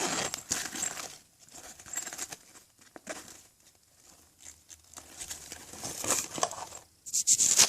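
Plastic packaging rustling and crinkling as items are handled, in irregular bursts with a quieter stretch in the middle and louder rustling near the end.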